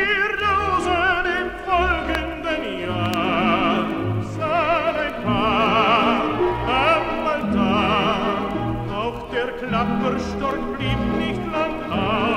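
Operetta recording: an orchestra accompanying a singer whose held notes carry a wide vibrato, with the music playing on without a break.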